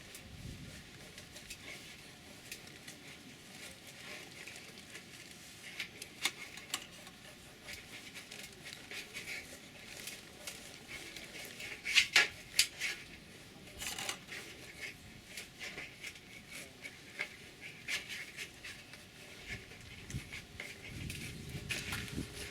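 Scattered light clicks and clatter of hard objects being handled, with a cluster of louder knocks about twelve seconds in.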